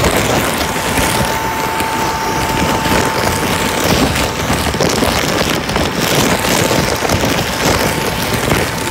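Loud rush of the blower fan inflating a tarp squeeze room, mixed with rustling and crumpling of the plastic tarps as a body pushes through between them and rubs past the microphone. A steady high hum runs under the noise throughout.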